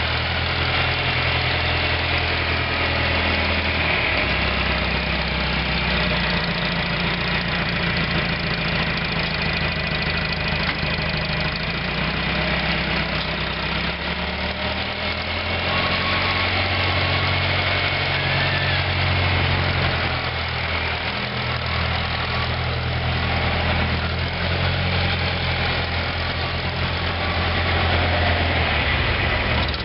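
1962 John Deere 3010's four-cylinder LP-gas engine running at low speed as the tractor is driven, its note shifting a little up and down.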